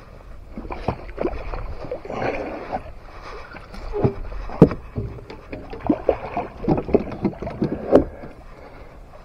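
Irregular knocks, thumps and clicks of footsteps and handled gear on a fiberglass flats skiff, with a few sharper knocks in the second half.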